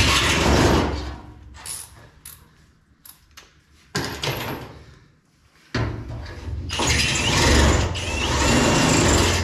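Power drill boring bolt holes in metal: a run at the start, a short burst about four seconds in, and a longer run through the last few seconds, with small clicks and knocks between.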